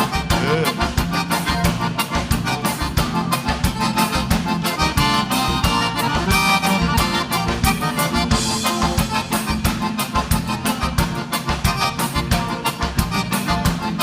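Live gaúcho dance band playing an instrumental break led by accordion, over a steady dance beat.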